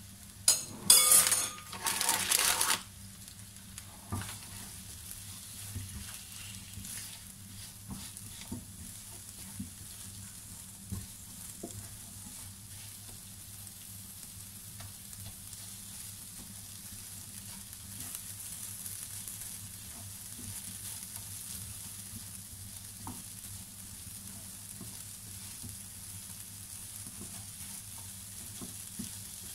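Cubed potatoes and spices frying in oil in a steel pan: a steady faint sizzle with scattered light scrapes and taps from a silicone spatula turning them. A brief loud noisy burst in the first three seconds is the loudest sound.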